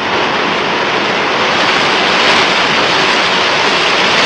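Trevi Fountain water cascading over stone, a steady rush that grows a little louder about a second in.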